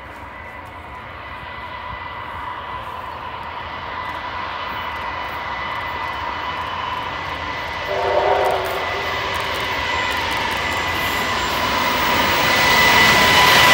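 Approaching ALCO-engined NSW 45 class diesel locomotive: the engine and its turbocharger give a steady high whine that grows louder as the train nears. A brief low toot about eight seconds in.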